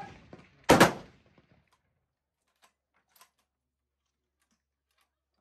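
A single gunshot about a second in, with a short fading tail, followed by a few faint clicks.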